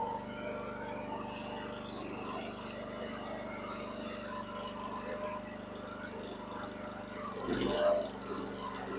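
Huayee mini excavator's engine running at a steady pitch, with a short, louder surge of noise near the end.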